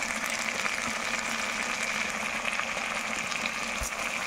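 Hot oil sizzling steadily in a metal kadai, frying onion, garlic and spice paste as turmeric powder and salt go in.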